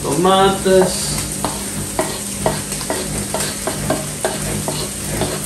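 Chopped tomatoes and peppers being scraped off a wooden cutting board with a knife into a hot frying pan of ground meat and chorizo, sizzling, with repeated knocks and scrapes of the knife on the board and pan, about two to three a second.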